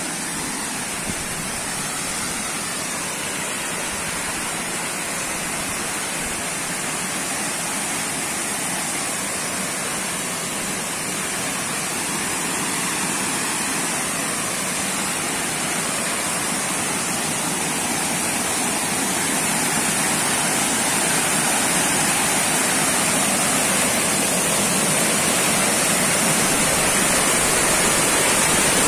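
Waterfall rushing with a steady roar that grows gradually louder.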